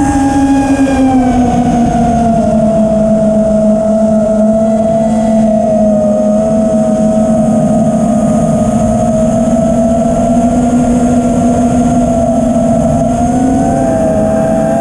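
FPV freestyle quadcopter's motors and propellers whining. The pitch drops about a second or two in, holds fairly steady with small wobbles, and climbs again near the end as the throttle comes back up.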